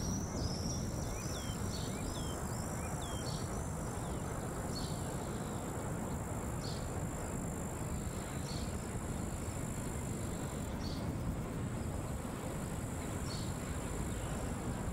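Outdoor ambience of steady wind rush with birds chirping: a quick flurry of short, downward-sweeping calls in the first few seconds, then single chirps every couple of seconds. A thin high steady tone runs under it until about two-thirds through.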